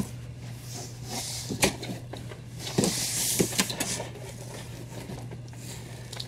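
Cardboard shipping box and its contents being handled: rustling and sliding of cardboard with a few light knocks, over a steady low hum.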